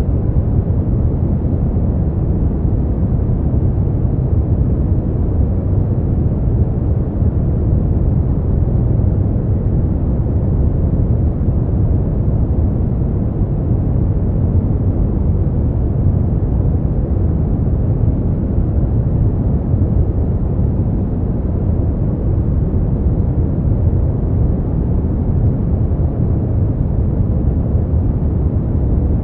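Steady, unchanging noise played for sleep, sounding deep rather than hissy: most of it sits in the bass and it thins out toward the treble, closer to brown noise than a bright white hiss.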